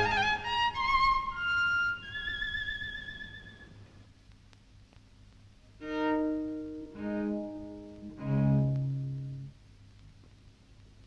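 Solo cello music: a quick rising run ends on a high note held with vibrato, which fades out about four seconds in. After a pause, three lower notes sound about a second apart, the last one the deepest.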